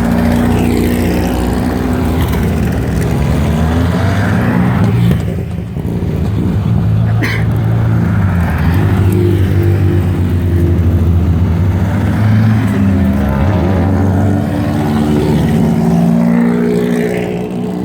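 Hill-climb race cars on the return run down the course, passing one after another at low revs. Their engines rise and fall in pitch as each goes by, with a sharp click about seven seconds in.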